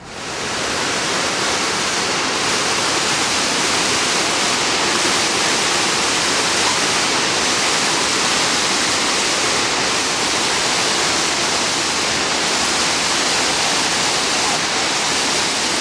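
Waterfall cascading over rocks: a loud, steady rush of falling water that comes in suddenly at the start.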